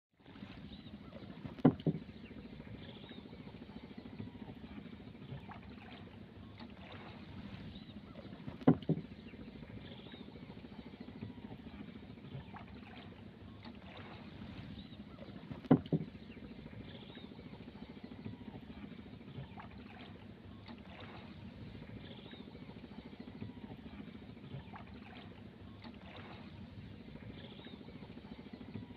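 Small boat moving through shallow water: a steady low wash of water against the hull, broken three times by a sharp double knock, about seven seconds apart.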